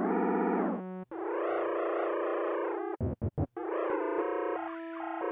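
Arturia Pigments' Harmonic engine, an additive synthesizer, sounding held notes in Cluster partial-modulation mode, its bright stack of partials shifting and sweeping as the cluster partials knob is turned: a sci-fi synth tone. It cuts out briefly about a second in and stutters on and off around three seconds in.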